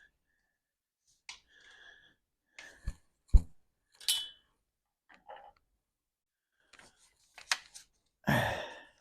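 Scattered clicks and knocks of parts being handled and pried with a screwdriver on a compact tractor, with a sharp knock about three and a half seconds in and a short scuffing burst near the end.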